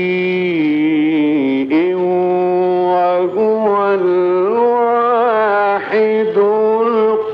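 A male reciter chanting the Quran in the melodic Egyptian mujawwad style. He holds long, ornamented notes that waver and step in pitch, with brief breaks for breath.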